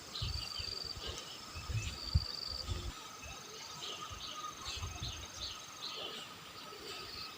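A chorus of insects, crickets among them, chirping in the field: repeated short chirps over a thin, steady high buzz. Low rumbling thumps come during the first three seconds.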